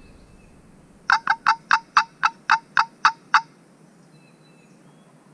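Turkey call sounding a loud, close run of about ten sharp yelps, about four a second, each note dropping steeply in pitch. It imitates a hen's yelping to draw in a gobbler.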